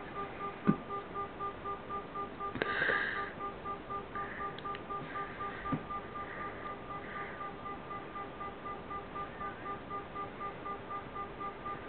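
Layered steady tones pulsing about three times a second, an I-Doser binaural-beat track leaking from headphones. A sharp knock comes just under a second in, and a brief noise about three seconds in.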